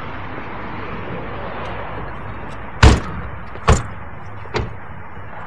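Car doors being shut: three thuds, each about a second apart, the first the loudest.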